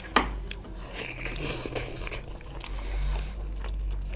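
Close-miked eating: a sharp click of a bite just after the start, then chewing with a grainy, crisp texture and a few small clicks.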